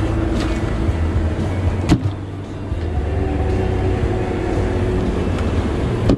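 250-hp outboard motor running steadily with the boat under way, with a sharp knock about two seconds in and another at the very end.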